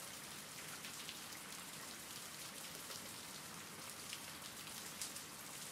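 Steady rain falling, soft and even, with light ticks of individual drops.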